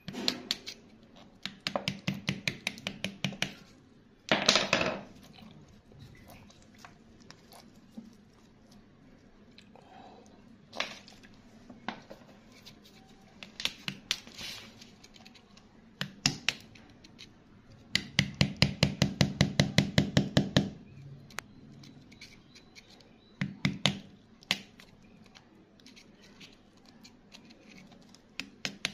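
A hand tool tapping and chipping at wet rock around an embedded stone, in short runs of rapid clicks about nine a second, the longest run a little past halfway. About four seconds in there is a louder scrape of tool on rock.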